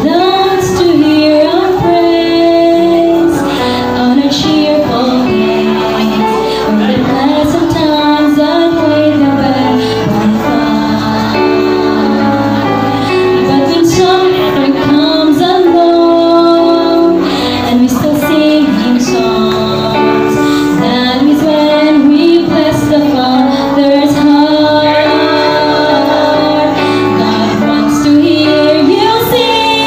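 A woman singing a solo song into a microphone over instrumental accompaniment, her voice holding long, sustained notes.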